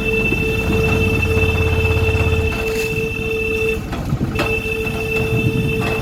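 A vehicle running with a steady low rumble, with two steady tones above it that drop out briefly about four seconds in.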